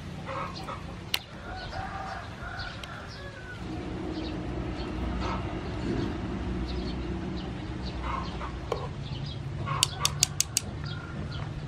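Metal tongs and a wire-mesh strainer clinking while boiled octopus is scooped out of a pan of boiling water, with a quick run of five sharp metal clicks near the end. Chickens cluck in the background.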